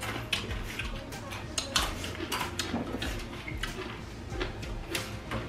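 Eating utensils clinking and scraping against dishes in a run of small, irregular clicks, several a second.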